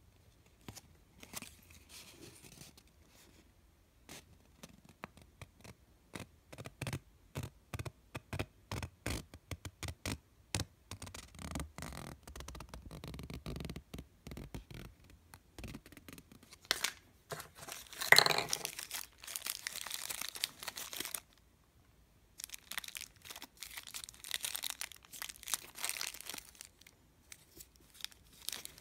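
Paper instruction insert and clear plastic bag being handled: crinkling and rustling with many sharp crackles, loudest about eighteen seconds in.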